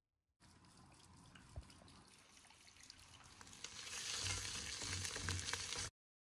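Tomato and spices frying in a pot, sizzling as they are stirred with a plastic spoon, with scattered light clicks. The sizzle starts just after the beginning, grows louder about halfway through and cuts off suddenly near the end.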